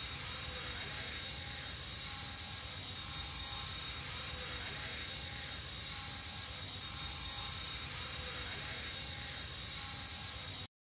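Radio-controlled model helicopter flying at a distance: a steady faint whir of rotor and motor that swells and fades slowly as it circles, cutting off abruptly near the end.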